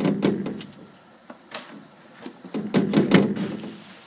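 Handling noise from a boxed merchandise set: the box is knocked, tapped and rubbed as it is turned over. The loudest clatter comes at the start and again about three seconds in.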